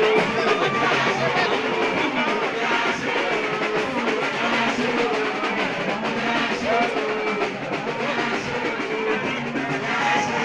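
Music with a singing voice over instrumental accompaniment, continuous and steady.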